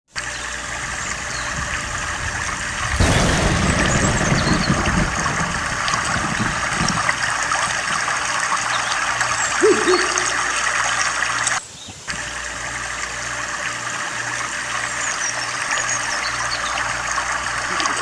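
Steady rushing hiss of a waterfall pouring into a pool. A low rumble joins it about three seconds in and fades over the next few seconds. The sound drops out briefly about two-thirds of the way through.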